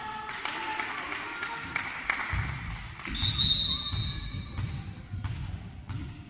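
Volleyball players calling out in a large hall, then a referee's whistle blown for about a second and a half, the signal to serve, over repeated dull thuds of a volleyball bounced on the wooden floor.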